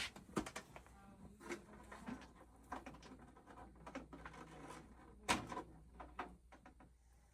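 Computer hardware being handled: irregular clicks and knocks of expansion cards and metal case parts being pulled and set down, the loudest knock about five seconds in, over a low steady hum.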